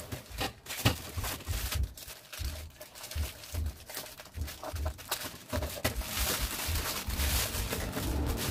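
Plastic poly mailer bag crinkling and rustling as it is handled, snipped with small scissors and pulled open, with irregular clicks and dull bumps against the table.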